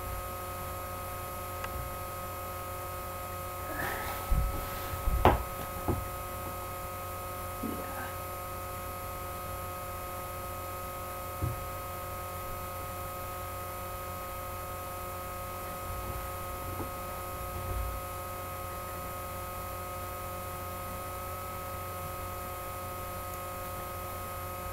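Steady electrical hum and buzz in the recording, made of several constant tones. A few soft knocks and rustles from movement come in, clustered about four to six seconds in.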